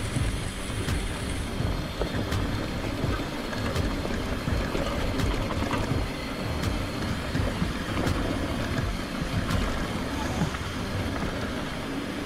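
Bicycle rolling over a rough, stony dirt trail: a steady rumble of tyres on loose rock, with frequent small knocks and clicks and some wind on the microphone.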